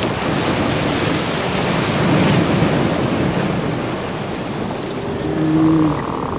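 Steady loud rushing noise, with a short low pitched tone about five seconds in.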